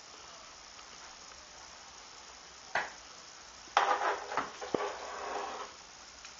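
Chicken being put into a cooking pan: a single knock, then about two seconds of clattering and rustling with a short clink in the middle.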